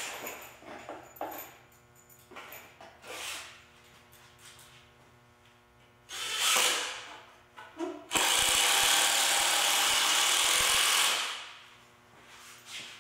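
Cordless impact driver driving long wood screws into a 2x4 frame: a short burst about six seconds in, then a steady run of about three seconds that stops abruptly. Before that, light clicks and rattles as screws are picked from their box.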